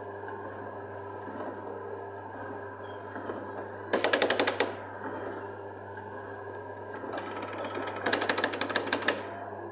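Two bursts of rapid, evenly spaced mechanical rattling from a kiddie ride's control panel as its buttons are pressed: a short burst about four seconds in and a longer one of about two seconds near the end, over a steady low hum.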